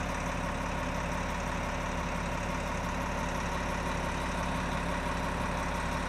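Diesel engine of a Volvo articulated hauler converted to pull log trailers, running steadily with an even low hum that holds its pitch.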